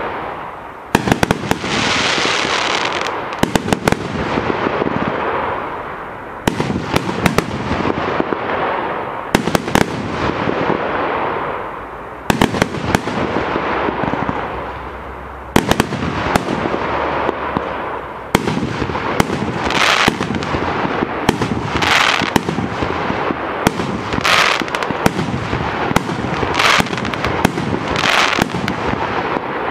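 The Hollywood 100-shot fireworks cake (multi-shot battery) firing shot after shot: sharp launch and burst bangs over continuous crackle and hiss from the falling stars. The bangs come irregularly at first, then settle into about one loud burst every two seconds.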